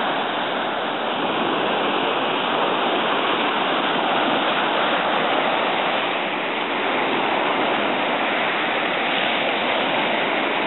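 Ocean surf breaking and washing up onto a sandy beach: a steady rush of water.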